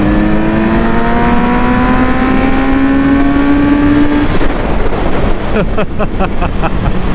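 2018 Kawasaki Z900RS's inline-four engine under hard acceleration, its note climbing steadily in pitch. About four seconds in, the engine note breaks off and leaves a rushing noise.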